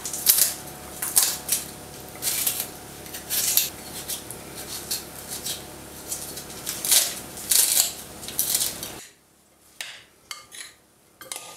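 A kitchen knife making short, crisp cuts through green chili peppers and a tomato held in the hand over a glass bowl. About nine seconds in, the sound switches to metal spoons stirring bulgur salad in the glass bowl, with light clicks against the glass.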